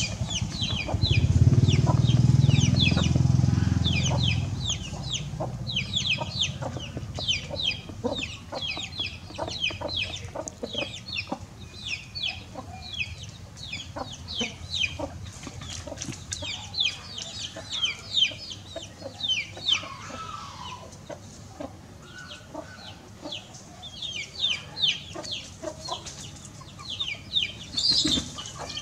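Chickens clucking softly while foraging, over a steady stream of rapid, high, downward-sliding chirps. A loud low rumble fills the first few seconds.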